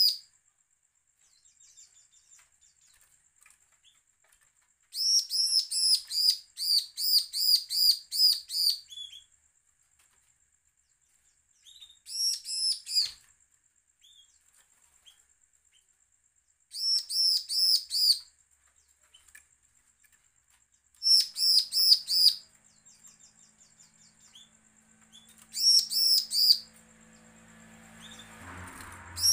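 Bar-winged prinia (ciblek) giving its aggressive, challenging song: bursts of rapid, sharp, high repeated notes separated by pauses of a few seconds. The longest burst lasts about four seconds.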